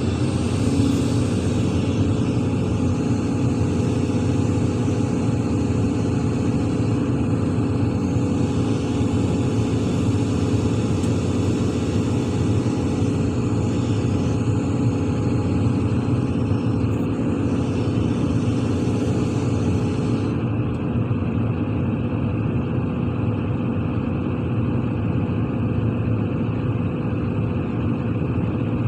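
Large hydraulic crawler excavator's diesel engine running steadily under load as it pushes a tipped dump truck, with a higher hiss over it that stops about twenty seconds in.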